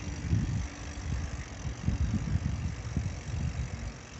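Wind buffeting the microphone of a camera riding on a moving bicycle, heard as an uneven low rumble in gusts over a steady hiss.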